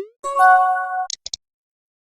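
Text-message app sound effects: a rising pop, then a short notification chime of a few steady tones, then a couple of quick ticks, and then silence.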